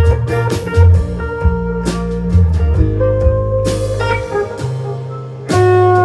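A live band plays an instrumental passage with no singing: acoustic guitar strumming under electric guitar lines, with strong low bass notes. A loud held note comes in near the end.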